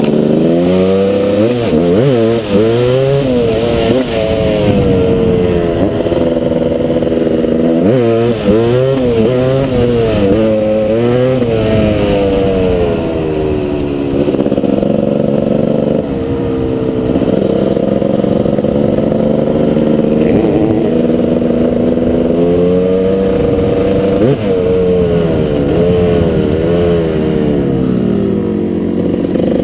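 GasGas enduro dirt bike's engine being ridden hard, its pitch climbing and dropping again and again as the throttle is opened and shut and the gears change.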